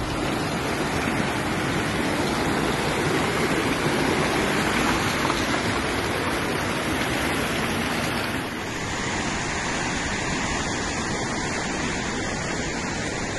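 Muddy floodwater rushing, a steady, even noise. About eight and a half seconds in it changes to the slightly quieter rush of a swollen, flooded river.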